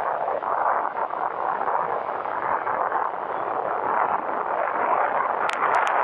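Wind rushing over the microphone of a camera on a moving motorcycle, a steady noisy rush that covers the engine, with a few sharp clicks near the end.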